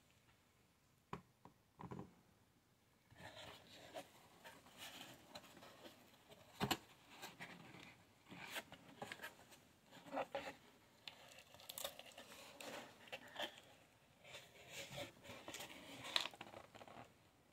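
Cardboard shipping box being opened by hand: packing tape tearing away and the flaps scraping and rustling as they are lifted and folded back, with scattered light taps and one sharper knock about seven seconds in.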